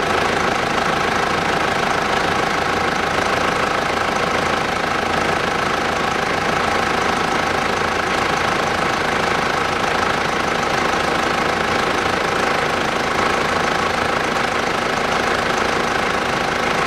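Mitsubishi Pajero's 3.2-litre four-cylinder diesel idling steadily with its radiator fan running. The refilled power steering pump makes no whine.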